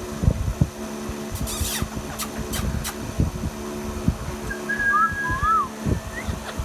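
Short whistles, a held note followed by two quick rising-and-falling notes about two-thirds of the way in, over a steady hum with scattered low thumps and a few short hissing bursts earlier on.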